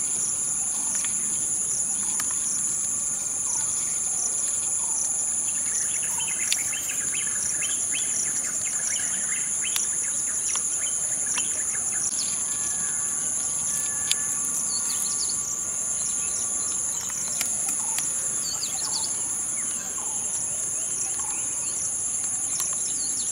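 A steady, high-pitched chorus of buzzing insects, with short bird chirps scattered through it.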